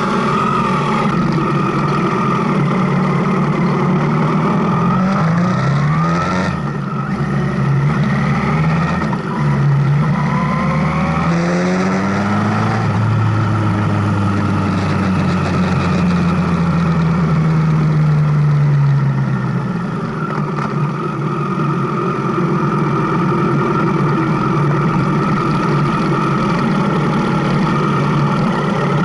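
Motorcycle engine running on the move, with a steady rush of wind and road noise. The engine revs up with rising pitch around 5–7 s and again around 9–12 s, then falls in a long slow drop from about 13 to 19 s before settling to a steady note.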